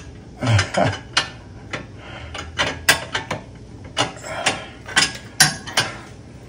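Wrench turning a freshly broken-loose 17 mm nut on a rear control-arm bolt, giving off sharp metallic clicks at an uneven pace.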